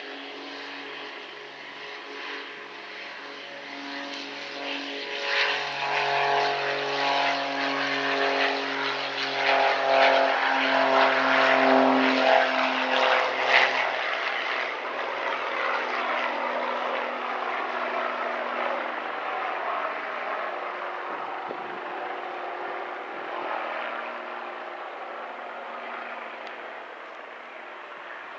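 Aircraft engines running at the airport: a steady hum of several tones over a rushing noise. It swells to its loudest about twelve seconds in, then slowly fades away.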